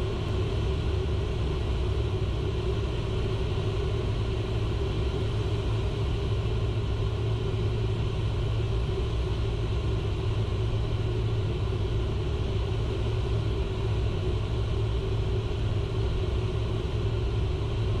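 Steady in-flight cockpit noise of a Learjet 60XR on short final approach: an even rumble of airflow and engine hum with a constant low drone, unchanged throughout.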